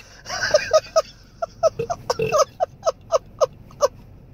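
A woman laughing: a breathy start, then a run of short, high, evenly spaced 'ha' bursts, about four a second, that stops shortly before the end.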